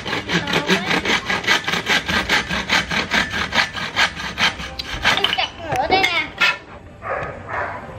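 Hacksaw cutting through a green bamboo stem in rapid, even strokes, about five a second. The sawing stops about five seconds in as the piece is cut through.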